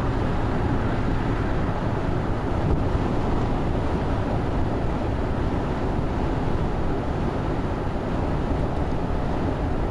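Steady road noise inside a car cabin at highway speed: tyre and engine rumble.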